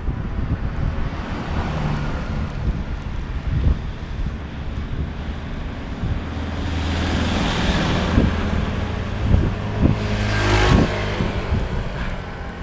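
Wind rushing over the microphone during a bicycle descent, with motor vehicles passing: engine and tyre noise swells up about seven seconds in and again, loudest, about ten seconds in.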